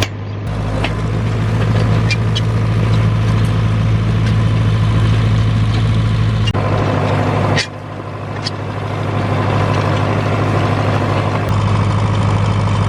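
Tractor engine running steadily while pulling a plastic mulch lifter, with scattered light clicks and rattles. The engine sound shifts abruptly in level and tone a few times.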